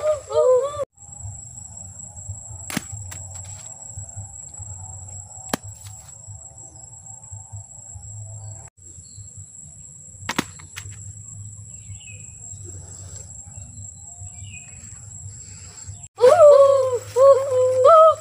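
A steady high-pitched insect drone with a faint low hum beneath it. In the first second, and again about two seconds before the end, children make high wordless calls that swoop up and down in pitch.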